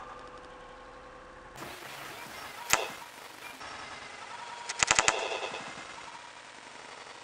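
Blowgun shots: one sharp pop about two and a half seconds in, and a quick run of four or five clicks around five seconds in.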